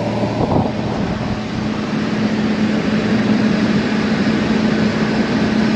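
A car driving along a rough, patched asphalt road: steady road and engine noise with a low hum.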